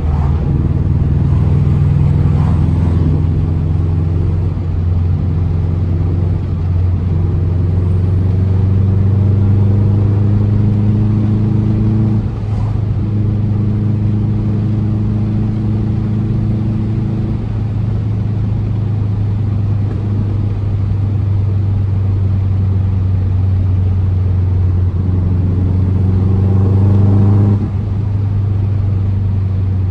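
2004 Subaru WRX's turbocharged EJ flat-four engine, with an Invidia exhaust, rumbling under acceleration through the gears. The engine note rises several times and drops suddenly at gear changes, about twelve seconds in and again near the end.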